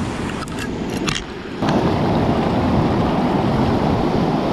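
Sea surf washing and breaking over rocks in a heavy swell, with wind on the microphone. A few short knocks come in the first second or so, and the surf noise jumps suddenly louder about a second and a half in.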